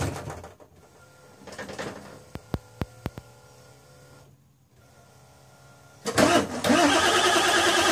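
Ford F-350 being cold-started: a few short clicks and a faint steady hum with the key on, then about six seconds in the starter begins cranking the engine, loud and evenly pulsing.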